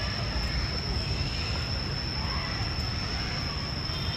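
Outdoor city-park ambience: a steady low rumble of traffic with faint distant voices, and a constant high-pitched whine.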